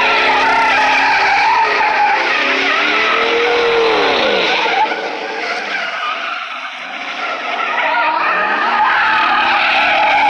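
Chevrolet Silverado pickup doing donuts: engine revving hard with the rear tires squealing against the asphalt. About five seconds in the revs drop away and the sound eases for a couple of seconds, then the engine climbs again and the tires pick back up.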